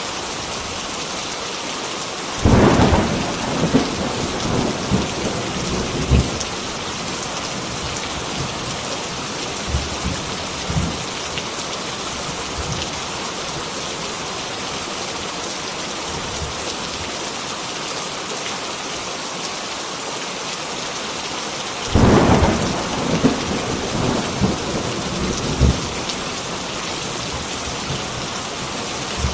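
Heavy rain falling steadily, with two claps of thunder, about two seconds in and again about twenty-two seconds in, each rumbling and crackling for several seconds.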